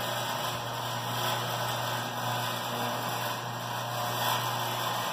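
Steady low hum of a Hi-Fold bi-fold door's drive running as the steel door frame lowers.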